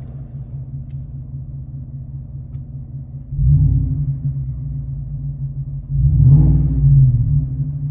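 Ford 5.0 Coyote V8 with a muffler-delete exhaust (resonator kept, side exit ahead of the rear tyre), heard from inside the cab: a steady low idle rumble, then two blips of the throttle, about three and six seconds in, each a sudden louder surge that settles back. Muffled in the cab but still pretty loud.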